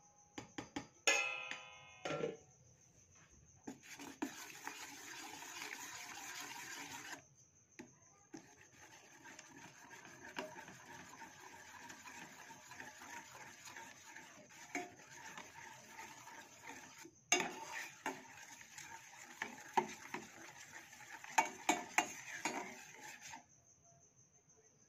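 A steel ladle stirs coconut milk in a stainless steel saucepan to dissolve milk powder, scraping and clinking against the pan. A ringing metal clang comes about a second in, and sharper clinks come near the end.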